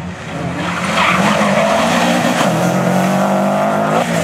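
Subaru Impreza rally car's flat-four engine driven hard at high revs as it accelerates through a tarmac corner and passes close by, with tyres squealing. The revs drop briefly near the end.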